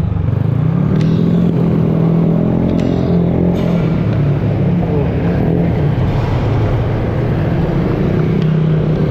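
Motor vehicle engine running steadily with a low hum while moving along a street, heard from on board.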